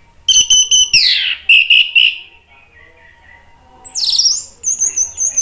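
Orange-headed thrush (anis merah) singing loud, varied phrases: a burst of rapid notes and a long downward-sweeping whistle about a second in, then three short clear notes; after a short pause, rising sweeps run into a fast, very high trill near the end.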